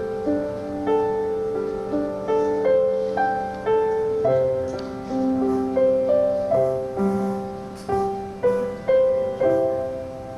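Solo piano playing a slow melody with chords, each note struck and left to fade.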